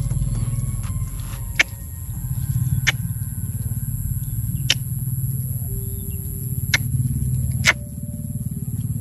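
A steady low rumble with a sharp click every second or two, and a faint high steady whine.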